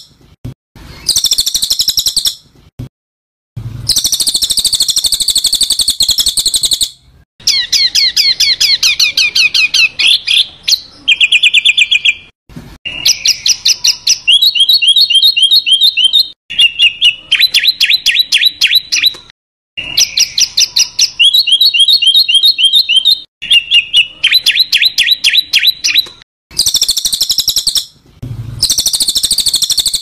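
Songbird masteran (bird-song training track) of harsh, rasping calls and rapid rattling trills, the rough 'tembakan kasar' phrases played to caged songbirds to copy. They come in loud bursts of one to three seconds with short gaps, some bursts repeated almost identically.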